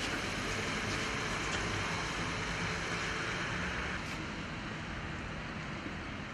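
Steady hiss and low rumble of outdoor ambience in falling snow, with no distinct events. It drops slightly in level about four seconds in.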